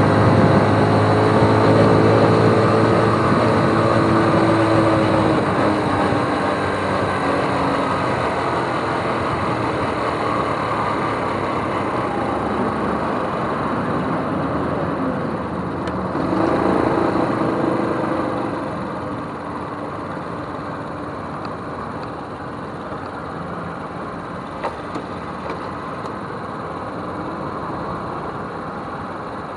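Small step-through motorcycle engine running under way. Its note drops over the first several seconds, picks up briefly about 16 seconds in, then settles lower and steadier as the bike slows and idles in traffic. There are a couple of faint clicks near the end.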